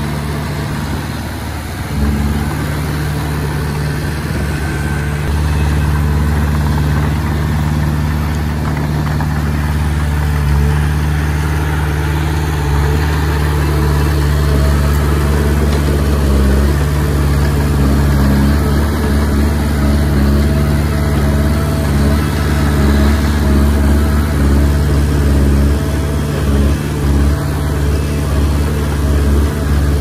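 Bulldozer's diesel engine running steadily with a deep, even note, getting louder about two seconds in.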